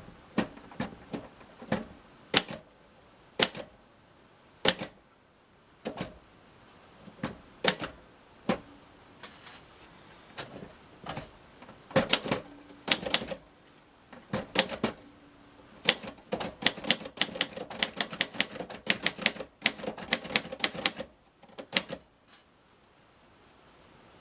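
1951 Royal Quiet De Luxe manual portable typewriter being typed on: sharp key and typebar strikes, slow and irregular at first, then quicker runs of keystrokes through the second half, stopping a few seconds before the end.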